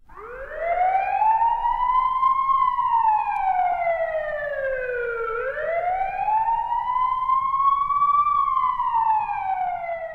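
Police siren wailing, its pitch rising slowly and falling back twice, each rise and fall taking about five seconds.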